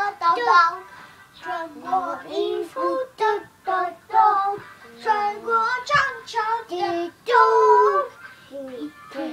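A young child singing a song in short phrases, with one long held note near the end.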